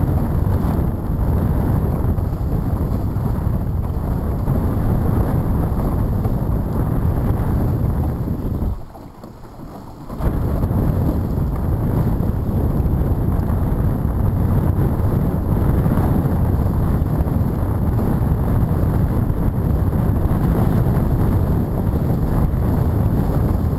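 Heavy wind buffeting the microphone of a HOOT dinghy sailing through choppy water, with water rushing and spraying off the hull. The noise drops away for about a second and a half near the middle, then comes back just as loud.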